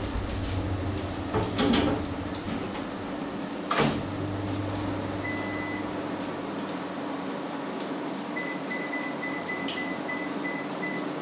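Microwave oven in use: two knocks in the first four seconds, as of its door being shut, then a low steady hum. A single high electronic beep about five seconds in, and a quick string of short high beeps near the end.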